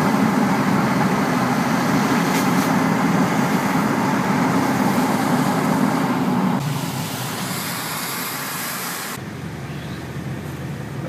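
Steady road and engine noise heard from inside a moving car's cabin, a low rumble under a hiss of tyres and wind. The rumble drops away about two-thirds of the way through, leaving a quieter hiss.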